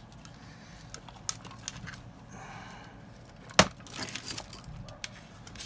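Small clicks and rustles of hands handling servo wires and plastic plug connectors on an RC crawler's chassis, with one sharp click a little past halfway through.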